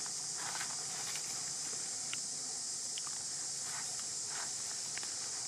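A steady, high-pitched chorus of insects, with short crackles of dry leaf litter scattered through it as a baby macaque moves over the leaves.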